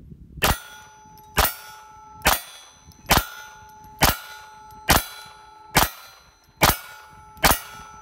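Smith & Wesson SW22 Victory .22 LR pistol firing Aguila rounds in steady rapid fire: nine shots, a little under one a second. Each shot is followed by a brief metallic ring, typical of rounds striking a steel target.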